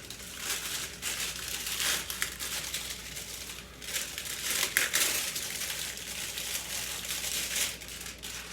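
Irregular crinkling and crunching noise with no steady rhythm, loudest about five seconds in.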